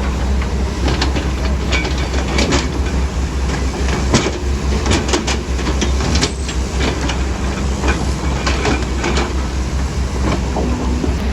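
Heavy tracked earthmoving machine running: a steady low diesel rumble with irregular metal clanks and rattles over it.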